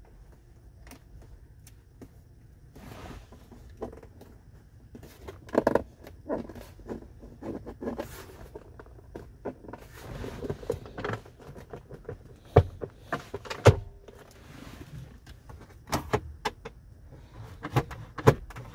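Hands tapping, pressing and knocking on the interior trim of a 2018 Audi A5 Cabriolet: the plastic centre-console panels, a storage compartment and the glovebox lid. A long run of small clicks and knocks with some rubbing, the sharpest knocks coming in the second half and at the very end.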